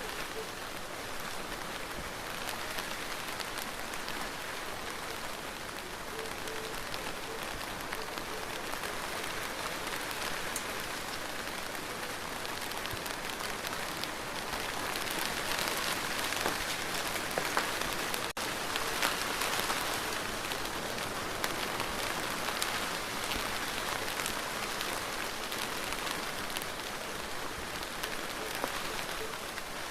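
Steady rain falling, a dense even patter, growing somewhat heavier around the middle.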